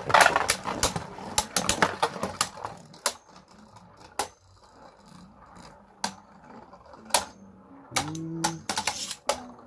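Two Beyblade Burst spinning tops, Rudr R5 and Ace Dragon V5, clashing in a plastic stadium: rapid clicking collisions just after launch, thinning to scattered clicks, then another quick flurry of clicks near the end.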